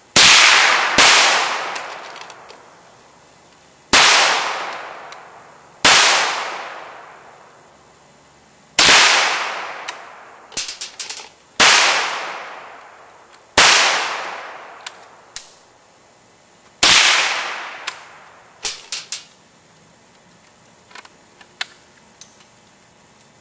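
Eight pistol shots fired one at a time at an uneven pace, the first two close together and the rest one to three seconds apart. Each shot trails off in a long decaying ring. Several are followed by small sharp metallic pings, as from rounds striking a steel plate target.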